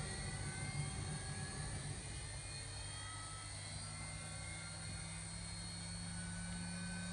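Steady low electrical hum with a few faint high whines, from a Cessna 172P's electrical and avionics system just powered up with the battery and avionics masters on.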